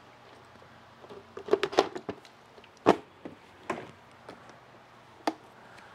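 Plastic engine cover of a Honda BF2.3 outboard being set back in place and latched: a cluster of light knocks and rattles about a second and a half in, then a few single sharp clicks.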